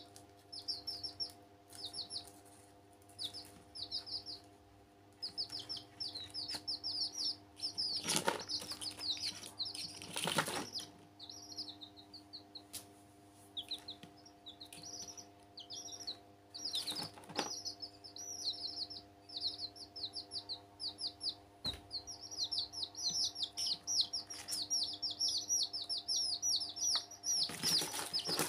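Baby chicks peeping: rapid series of short, high, falling cheeps, thickest near the end. A few brief rustling bursts as the chicks scramble in the plastic tub, over a faint steady hum.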